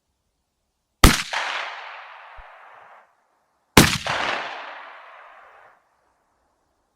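Two shotgun shots from a Beydora BDR-90, about two and a half seconds apart, each followed by a long echo fading over about two seconds.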